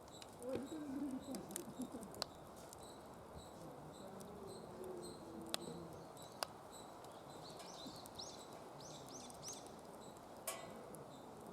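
Wood fire crackling in a secondary-combustion fire pit, with irregular sharp pops and snaps over a steady low hiss. A bird chirps a few times in quick succession about eight seconds in.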